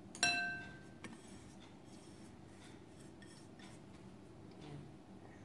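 A single sharp clink of tableware being handled, ringing briefly, about a quarter of a second in. A lighter tap follows about a second in, then faint rustling as dishes and cups are moved on the table.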